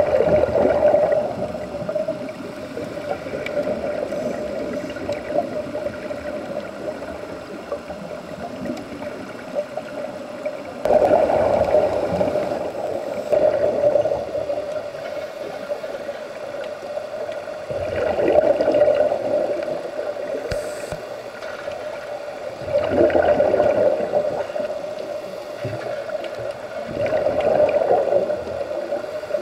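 Scuba regulator breathing heard underwater: five surges of bubbling exhalation, roughly every five seconds, over a steady hum.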